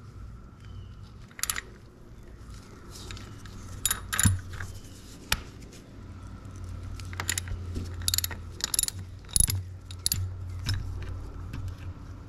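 Irregular sharp metallic clicks and clinks of a ratchet and oil filter wrench being fitted and worked against a motorcycle's oil filter. The loudest come about four seconds and about nine and a half seconds in.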